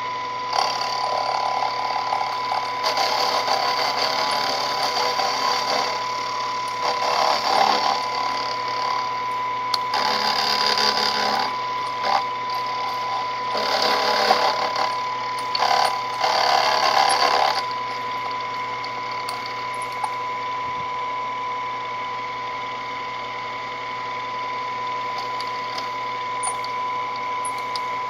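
Small benchtop milling machine running with a steady whine while its end mill takes repeated short cuts into a small metal part held in a vise. Each cut adds a noisy cutting sound lasting a second or two. The cuts stop about two-thirds of the way through, and then only the spindle runs.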